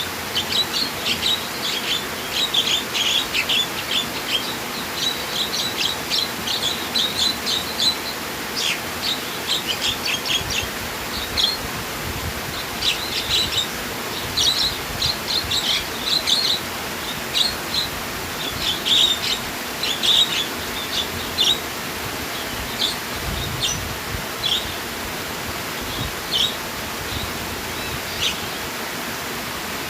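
Small birds chirping and twittering over a steady rush of flowing water. The chirps come thick and fast at first and thin out after about halfway.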